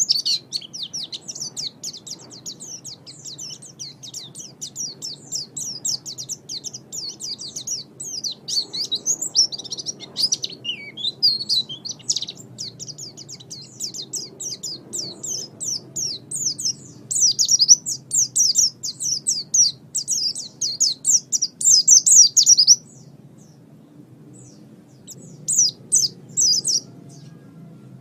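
Small songbird singing a fast, continuous twittering song of high chirps. It breaks off about 23 seconds in and starts again after about two seconds.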